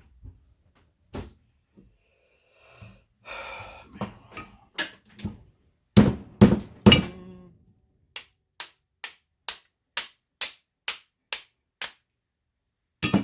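Metal knocks and clatter from a light ballast being broken apart for its copper, with a short scrape, then three heavy blows about six seconds in. After them comes an even run of about nine sharp taps, roughly two a second.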